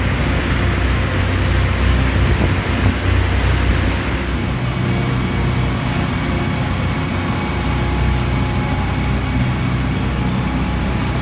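A boat's engine running steadily underway, a constant low hum, with the rushing wash of water from its wake.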